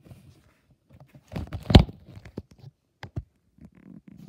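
Handling noise: rustles and light knocks as the phone camera is moved about, with one loud sharp knock a little under two seconds in.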